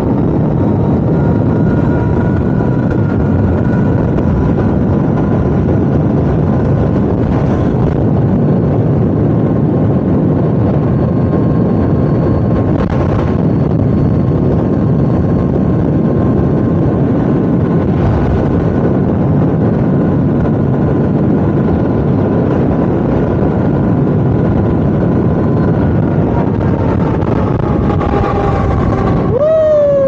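Wind rushing over a helmet-mounted microphone on an electric dirt bike at highway speed, under the motor's steady high whine. Near the end the whine falls in pitch as the bike slows.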